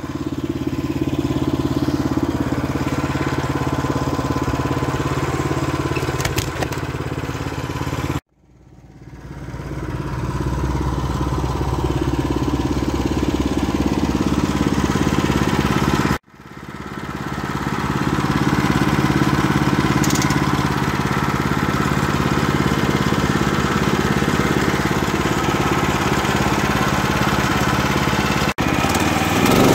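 Portable bandsaw mill running: its engine drones steadily as the band blade cuts through a black walnut log. The sound cuts off abruptly and comes back up twice, and it breaks briefly once more near the end.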